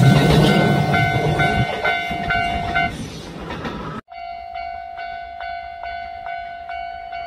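A train passes with a low rumble while a Japanese level-crossing bell rings. The bell is a steady pitched tone struck a little over twice a second. The sound cuts out abruptly about four seconds in, and the crossing bell then rings on alone, quieter.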